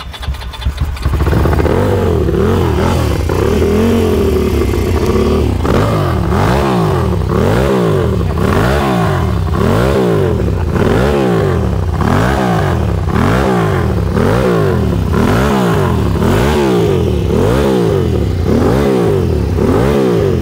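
Ducati TT1's 750 cc air-cooled two-valve desmodromic V-twin (the Pantah engine), just started. It runs steadily for a few seconds, then from about five seconds in it is revved up and down over and over, about once a second.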